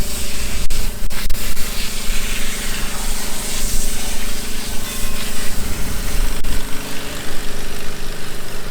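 An engine running steadily under a loud, even rushing hiss.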